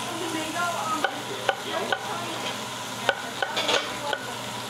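Chef's knife chopping an onion on a wooden cutting board: a run of sharp knocks from about a second in, over the steady sizzle of beef chuck searing on a hot griddle.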